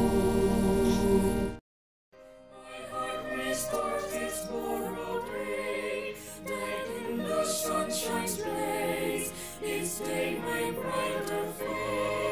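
A held organ chord cuts off about a second and a half in. After a brief silence a choir begins singing in several parts.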